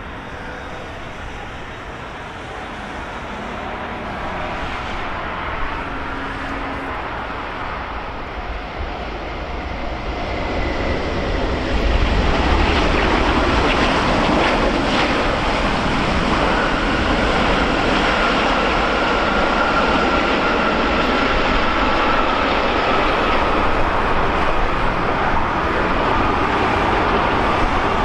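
Jet airliner passing close by: a rushing engine noise that builds about ten seconds in and stays loud, with a high whine that slowly falls in pitch.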